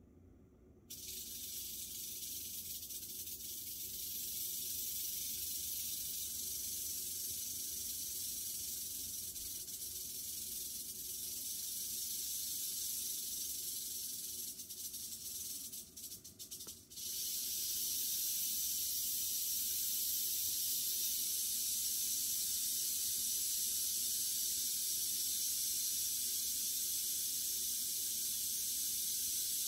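Western diamondback rattlesnake rattling its tail: a steady, high-pitched buzz that starts abruptly about a second in, falters and briefly stops about halfway through, then resumes a little louder.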